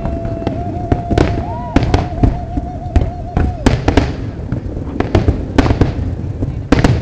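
Fireworks going off in a dense series of sharp bangs, several a second at irregular spacing, over a low rumble, with voices underneath. A steady held tone sounds through about the first three and a half seconds.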